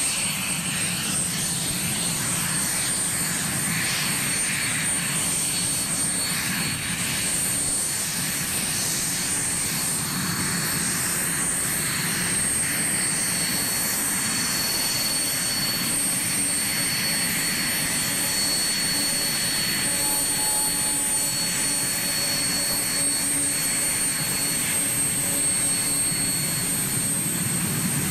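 Cessna A-37 Dragonfly's twin General Electric J85 turbojets running as the jet taxis: a steady high whine over a rushing noise.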